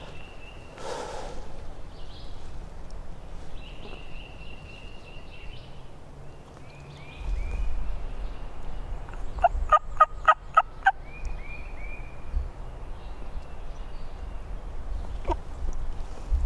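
A wild turkey gobbler gobbles once, a quick rattling run of about seven notes about ten seconds in, the loudest sound. Small birds sing short high repeated notes throughout, and wind rumbles on the microphone.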